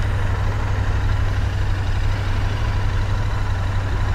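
Motorcycle engine idling steadily with a low, even drone.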